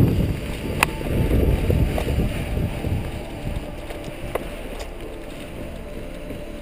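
Wind buffeting the microphone during a paraglider landing, a heavy low rumble that eases off as the pilot comes to a stop, with a few sharp clicks at about one, two and four seconds in.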